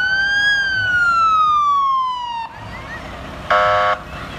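Emergency vehicle siren winding up to a peak and sliding down in pitch, then cutting off suddenly about two and a half seconds in. Near the end, a short, loud horn blast.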